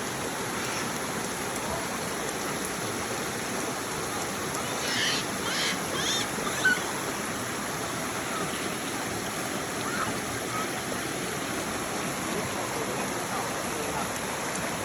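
Steady rushing of flowing water from the waterfall stream. A few short high-pitched calls come around the middle, followed by a brief sharp knock.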